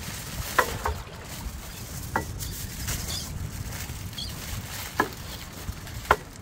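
Aluminium foil being handled and folded: crinkling and rustling with about five sharp crackles, over a low steady rumble of wind on the microphone.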